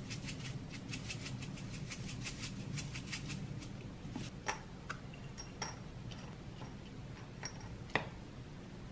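Hand-twisted sesame seed grinder clicking quickly and evenly, about five or six clicks a second, as sesame is ground over the food. After it stops, a few separate knocks and clinks of dishes and containers on the table follow, the sharpest near the end.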